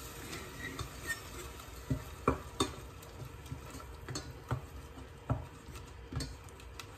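Black slotted spatula stirring and scraping a blended tomato, ginger and garlic paste in a stainless steel saucepan, with scattered knocks against the pan, the loudest between two and three seconds in. Under it a faint sizzle as the paste fries in oil until fragrant.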